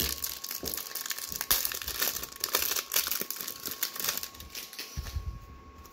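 Thin clear plastic wrapper on a pack of trading cards crinkling and tearing as it is pulled open by hand. The rustling thins out near the end.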